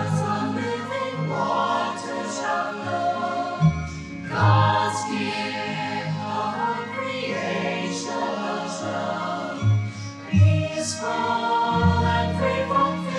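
A choir singing, with sustained low instrumental notes underneath.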